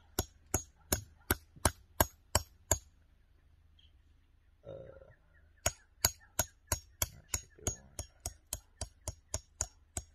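A hammer strikes the spine of a knife, driving (batoning) the blade down through a piece of green sapling wood to split it. The sharp metallic taps come about three a second. They stop for about three seconds midway and then start again.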